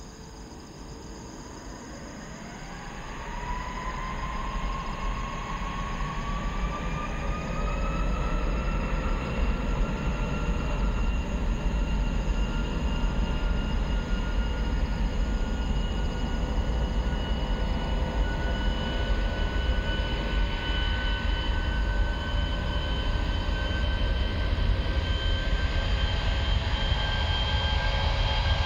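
An Airbus A340-600's four Rolls-Royce Trent 500 jet engines spooling up to takeoff thrust. A whine rises in pitch from about two seconds in and then levels off, over a deep rumble that grows louder as the airliner rolls down the runway.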